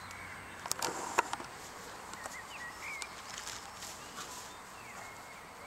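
Quiet outdoor garden ambience, with a cluster of sharp clicks about a second in and a few faint, short high chirps afterwards.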